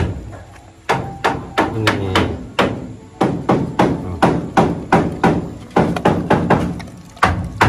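Pit bull crunching and gnawing on a raw pork bone held to its mouth, a run of sharp cracking bites about three a second.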